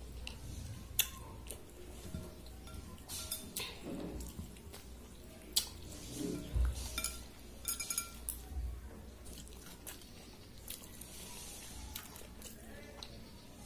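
Hand mixing watery soaked rice (panta bhaat) in a bowl: soft wet squishing with scattered sharp clicks and clinks against the bowl, a few of them ringing briefly a little past the middle.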